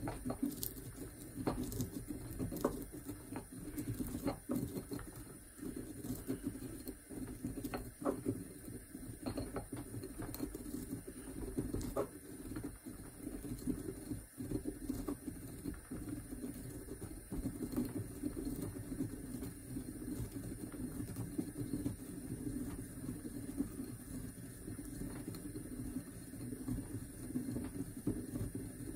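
Pestle grinding sage in a mortar: a steady scraping grind with scattered sharp clicks, more of them in the first half.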